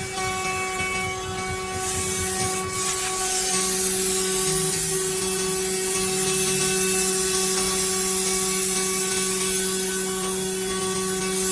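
Six-sided CNC drilling machine at work on a wooden panel: a steady motor hum and whine, with a high hiss that swells about three seconds in and holds, and a brief click just before it.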